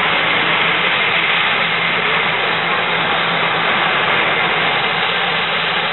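F-16 fighter's jet engine running steadily as the jet moves along the runway: a loud, even rush of noise with a faint high whine held throughout.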